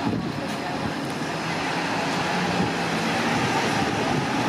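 Street traffic, with a single-deck bus pulling past close by and its engine humming over steady road noise.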